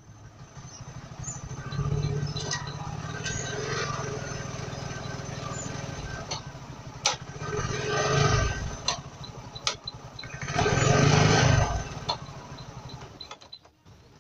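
Bajaj Boxer motorcycle's single-cylinder four-stroke engine running, revved up twice, the second time the loudest, with a few sharp clicks between, then dropping away near the end.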